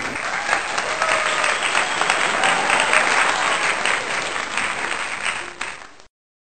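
Applause: a crowd clapping steadily, then cutting off abruptly near the end.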